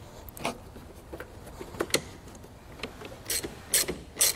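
Scattered sharp metal clicks as a battery cable eyelet and nut go onto a terminal stud, then several quicker clicks in the last second or so as a socket ratchet tightens the nut.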